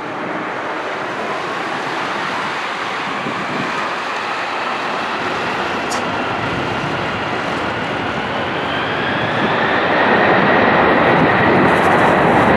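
Airbus A380's four Rolls-Royce Trent 900 turbofans running as the airliner taxis and turns onto the runway: a steady jet rush with a whine that rises in pitch and gets louder about ten seconds in.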